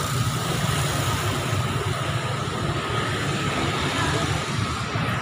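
Steady low rumble of motor vehicle engines running on the street, with a faint steady whine over it.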